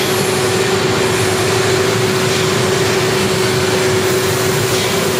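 Paddle boat's engine-room machinery running under way: a steady mechanical drone with a constant hum held throughout.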